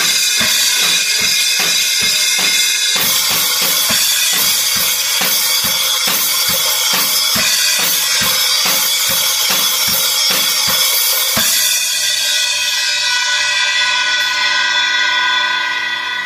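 Acoustic drum kit played in a steady beat on bass drum, snare and cymbals. About eleven and a half seconds in the strokes stop on a last hit, and the cymbals ring on and fade out near the end.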